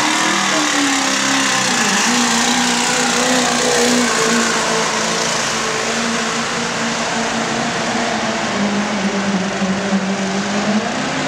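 Pro stock diesel pickup truck engine held at full throttle under heavy load during a truck pull, a loud steady drone whose pitch dips briefly about two seconds in and then holds.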